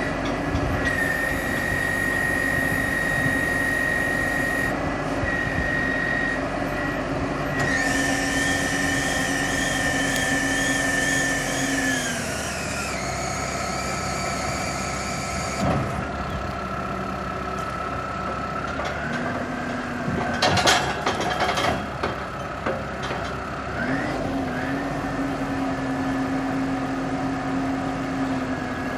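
Gehl DL12-55 telehandler's John Deere turbo diesel running under hydraulic load as the boom is lowered and retracted, with a steady high whine over the engine. The pitch drops about twelve seconds in and rises again twice later on, and there are a few short clanks around the twenty-second mark.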